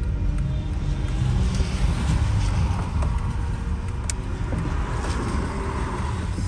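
Car driving on a rain-wet road, heard from inside the cabin: a steady low rumble of engine and road, with the hiss of tyres on wet pavement growing from about a second and a half in.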